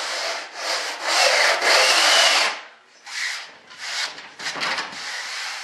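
Long 50-grit sanding block rubbed along the edge of a model aircraft elevator panel in long, rasping strokes, the longest lasting about two seconds. After that, a few fainter, shorter scrapes.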